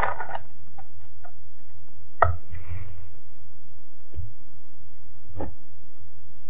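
Kitchen knife cutting through layered dough on a parchment-lined baking tray: a few short, sharp taps as the blade presses down, with a faint paper rustle near the middle. A low steady hum runs underneath.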